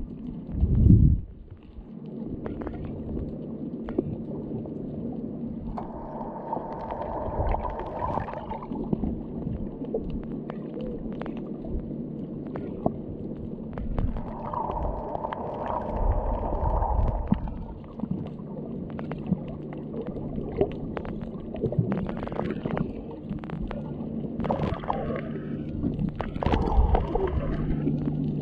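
Underwater sound picked up by a GoPro Hero7 in its housing: muffled water noise with a steady low hum, two loud thumps at the start, and two spells of louder rushing about six and fourteen seconds in.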